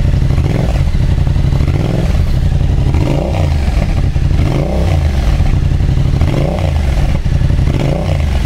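Yamaha XSR700's 689 cc parallel-twin engine idling loudly with its silencer off, blipped several times so the revs briefly rise and fall.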